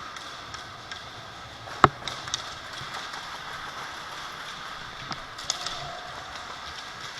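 Airsoft gun firing a single sharp shot about two seconds in, followed by a few fainter pops and clicks, over a steady background hiss.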